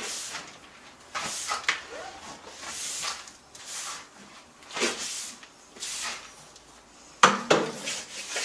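Broom strokes sweeping loose wood-shaving bedding across a hardwood floor, in separate swishes about a second apart, with a louder knock near the end.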